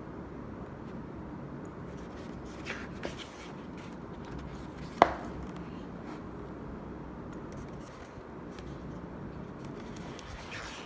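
Pages of a large cartoon book being turned and handled, with soft paper rustles and one sharp tap about five seconds in, over steady low room noise.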